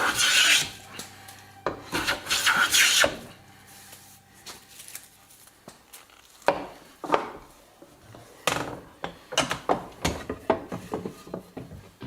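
Hand-filing strokes scraping across the workpiece. Two long, loud strokes come near the start, then a run of shorter, quicker strokes in the second half.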